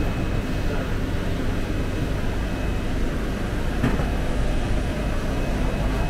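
Steady low rumble of running machinery with a faint steady whine above it, and a single short knock about four seconds in.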